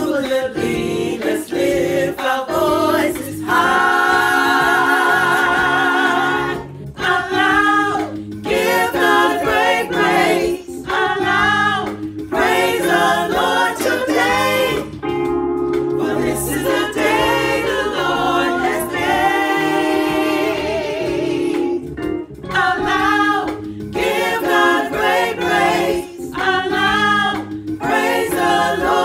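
Women's vocal ensemble singing a gospel hymn together in harmony, phrase after phrase, with a few long held notes that waver with vibrato.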